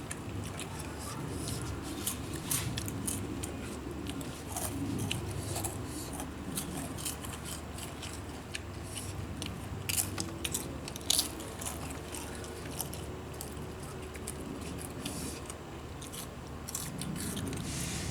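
A person chewing crunchy corn snack chips close to the microphone, with many sharp crunches scattered irregularly throughout.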